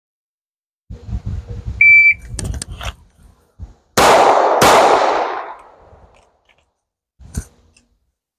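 A shot timer gives one short start beep about two seconds in. Then a Glock 19X 9mm pistol fires a double tap, two shots about two-thirds of a second apart (a .64 split), each trailing off in a fading echo.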